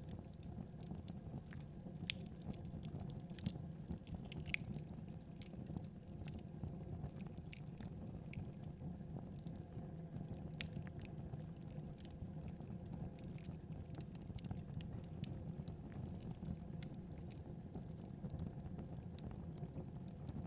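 Wood fire burning: a steady low rumble with scattered, irregular crackles and pops, a few louder pops in the first five seconds.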